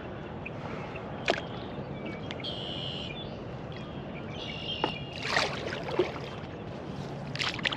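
Kayak moving through shallow marsh water: a steady low wash of water and hull noise, broken by a few sharp knocks and short splashy bursts. Two buzzy bird calls come in the middle.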